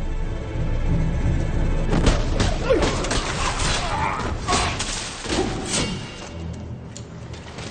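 Tense film score music with several low booms and thuds, clustered in the middle few seconds and easing off near the end.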